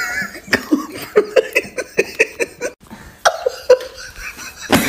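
A person laughing: a run of short, quick giggling bursts, then a few more. A sharp knock comes near the end.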